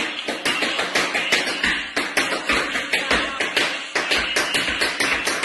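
Tap shoes striking a wooden floor in a fast, continuous run of sharp taps, several a second, as a tap dance routine.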